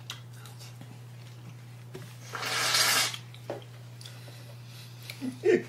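Aerosol whipped-cream can squirting cream onto a strawberry: one hissing spray lasting just under a second, about two seconds in.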